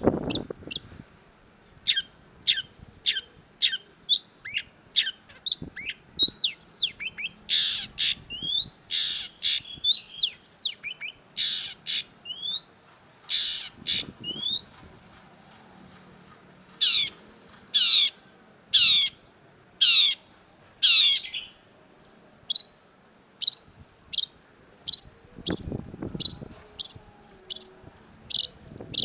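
Long-tailed shrike singing a loud string of short, sharp notes, most sweeping down in pitch. The notes run dense and varied for several seconds in the middle, turn harsher for a few notes, then settle into a run of quick, evenly spaced chirps near the end. A couple of dull low thumps sound under the song.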